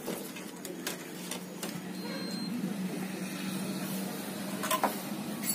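Light clicks and rattles from a TV power-supply circuit board being handled, with a short cluster of sharper clicks near the end, over a steady low hum.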